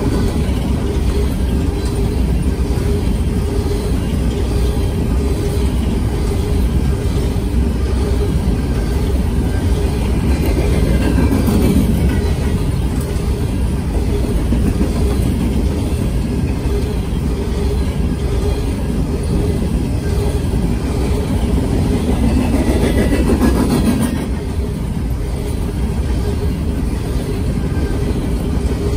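Empty open-top coal cars of a freight train rolling past at speed, close by: a steady rumble of steel wheels on the rails with a constant hum. It swells briefly about eleven seconds in and again a little past twenty seconds.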